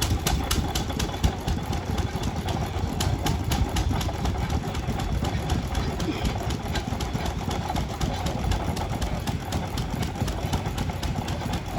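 An engine running steadily, with a rapid, even beat of sharp knocks over a low rumble.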